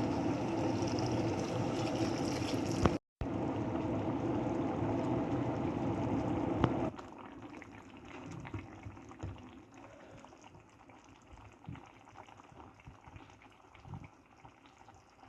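Crab curry bubbling at a boil in a pan, a steady loud bubbling that stops short about seven seconds in, after which only a quiet background with a few faint knocks remains.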